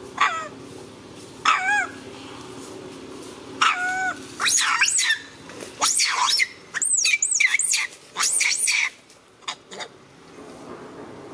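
A macaque crying out in a series of high-pitched screaming calls that glide up and down in pitch. There are a few single calls in the first four seconds, then a dense run of calls from about four and a half to nine seconds in.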